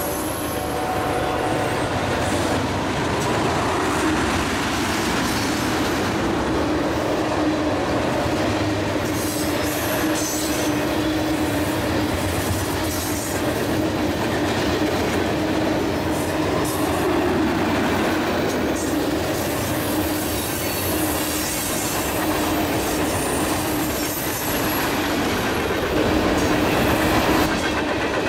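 A long freight train of container flatcars and tank cars rolling past: steel wheels rumbling and clicking over the rails, with a steady wheel squeal.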